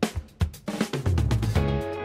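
Background music: a drum kit keeping a steady beat of about two hits a second, joined about two-thirds of a second in by bass and other pitched instruments.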